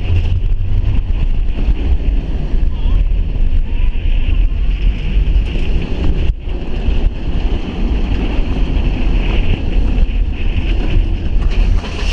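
Strong wind rushing over the microphone aboard the Hulk steel roller coaster, over the low rumble of the train running fast along the track. A short dip about six seconds in.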